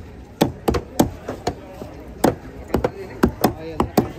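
Curved fish-cutting chopper chopping through king fish pieces on a wooden table: about a dozen sharp chops at an uneven rhythm, some close together in pairs.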